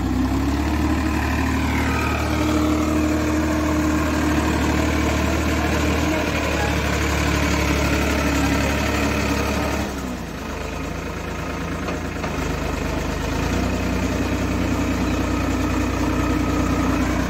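Tractor diesel engine running steadily with a low, even note. About ten seconds in its note drops and eases off, then it picks up again a few seconds later.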